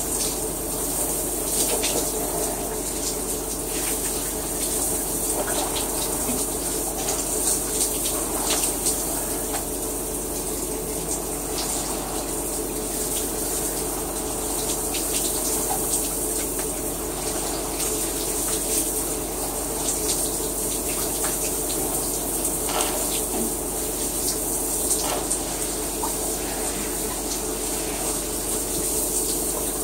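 Shower running: a steady spray of water falling, with scattered sharper splashes.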